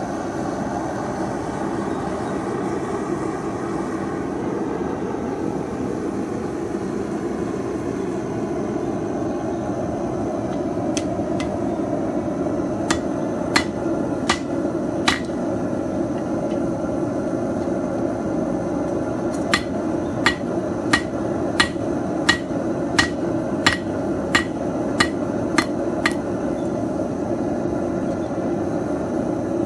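Hammer blows on hot metal at the anvil, forge-welding a stack of coins into a mokume gane billet: a few sharp ringing strikes about halfway through, then an even run of about ten blows, roughly one and a half a second. Under them, the steady rushing noise of the running forge.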